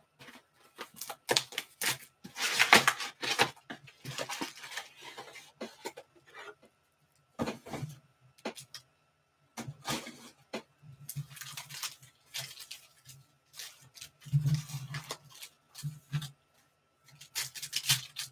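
Foil wrappers of trading-card packs crinkling and tearing as the packs are handled and ripped open by hand, in irregular rustling bursts with short pauses between.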